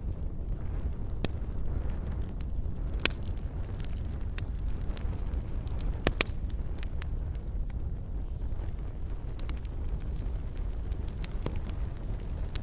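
Wood fire burning in a fireplace: a steady low rumble of flame with irregular crackles and sharp pops, the loudest pops about three and six seconds in.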